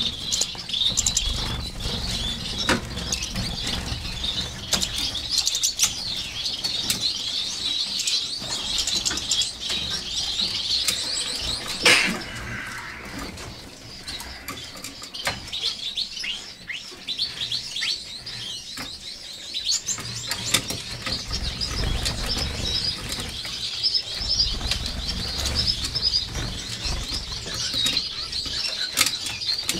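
A cage of finches, Gouldian finches among them, chirping and twittering without pause in short high notes, with wing flutters and scattered clicks. A single sharp knock comes about twelve seconds in.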